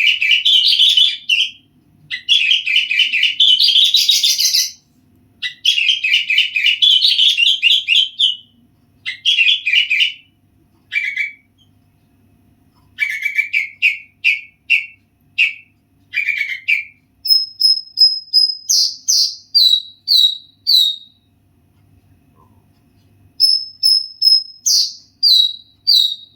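A songbird singing close and loud in bursts of rapid chattering trills, each a second or two long. About two-thirds of the way through, its song changes to a held high whistle followed by a run of short falling notes, given twice.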